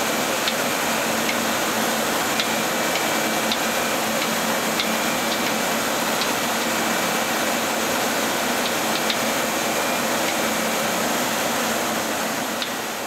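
Okuma Multus B300 CNC lathe running, a steady machine hum and whir with a faint high whine and a few light ticks.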